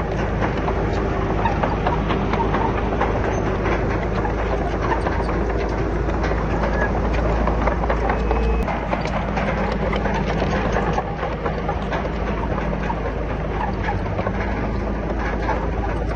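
Diesel engine of a Komatsu D31PX crawler bulldozer running steadily under load, with steel tracks and pushed rock clanking and knocking throughout; the engine note drops about nine seconds in.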